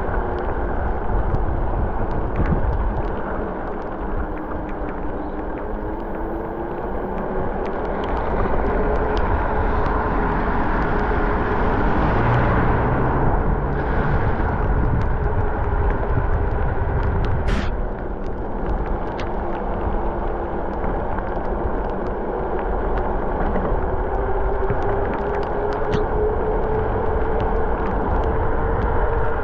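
Mountain bike rolling along a road: steady tyre and wind noise on the microphone, with a hum that drifts slowly up and down in pitch.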